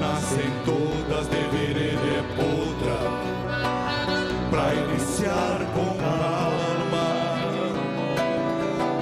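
A milonga played live on three nylon-string classical guitars, with many plucked notes throughout.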